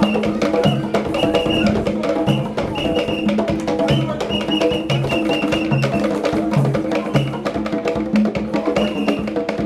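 Live hand drumming by a street drum troupe on tall African-style drums: a fast, dense rhythm with deep bass strokes about once a second, under a repeating melodic line.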